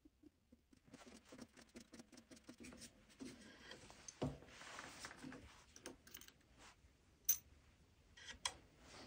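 Faint small metallic clicks, taps and scrapes of steel tooling being handled at a milling machine: the drill chuck and the jig bushing in a drill jig. There is a single knock about four seconds in and a couple of sharp clicks near the end.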